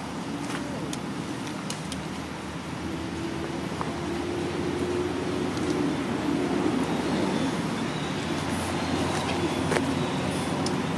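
Steady low background rumble that grows a little louder a few seconds in, with a faint steady hum over it for a few seconds and a few light clicks.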